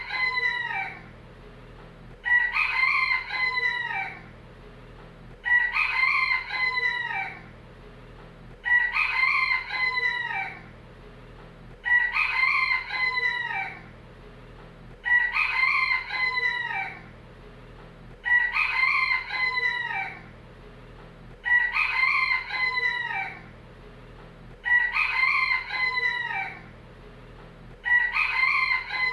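Rooster crowing cock-a-doodle-doo over and over, one crow about every three seconds, each crow the same.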